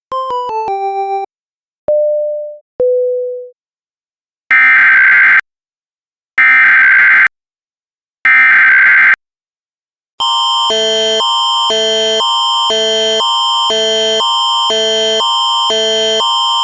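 Emergency alert tones: a quick descending run of electronic chime notes and two fading beeps, then three one-second bursts of SAME digital header data, then from about ten seconds in the Canadian Alert Ready attention signal, a steady upper tone over lower tones that alternate about twice a second.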